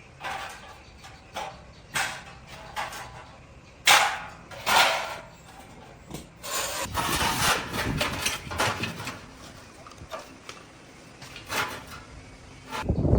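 Hand-tool work on metal or wood: a few sharp knocks, then a few seconds of scraping in the middle, with scattered smaller clicks.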